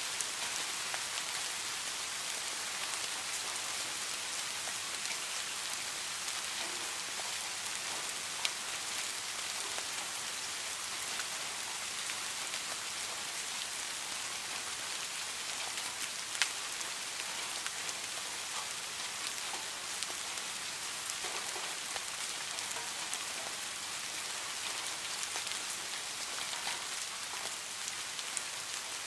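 Steady rain falling: an even hiss dotted with small drop ticks, with two sharper drips standing out, one about eight seconds in and one about sixteen seconds in.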